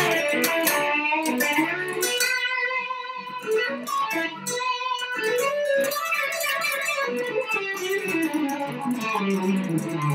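Home-built electric guitar played with light overdrive on a full humbucker setting, giving a rock sound. Picked single notes and short phrases, several with bends or slides that rise and fall in pitch.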